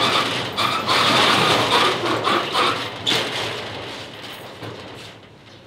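Metal roller shutter rattling, with irregular clanks through the first few seconds, then dying away.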